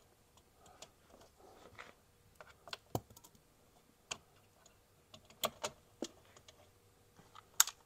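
Light, scattered clicks and taps of a wire being pushed up behind plastic interior trim panels, with a few sharper clicks spaced irregularly and soft rustling between them.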